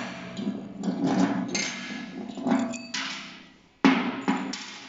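Steel anchor bolt knocking and clinking against the lift's steel chequer-plate baseplate: several sharp metallic knocks, each ringing briefly.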